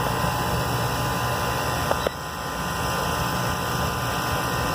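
GeoCool two-stage water source heat pump running steadily, its compressor humming while drawing only about 7 amps against a rated 21.8: the unit is low on refrigerant. A short click sounds about two seconds in.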